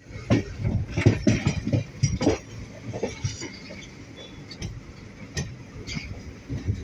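Train wheels clattering over rail joints and points, heard from aboard the moving train: a run of loud, irregular knocks over the first couple of seconds, then fainter, sparser clicks over a steady rumble.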